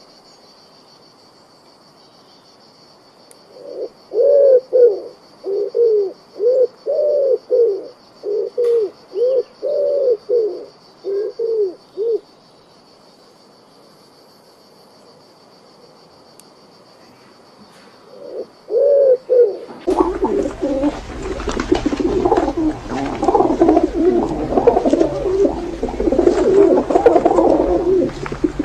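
Pigeons cooing. First comes a run of about a dozen short, low coos, then a couple more. After a sudden change about two-thirds through, many overlapping calls run together densely over a low hum.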